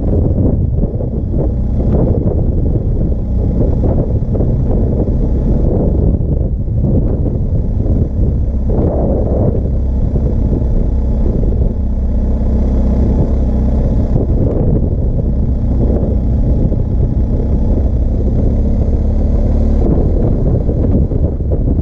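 BMW R 1250 GS Adventure's boxer-twin engine running steadily while the bike is ridden, heard from the rider's position.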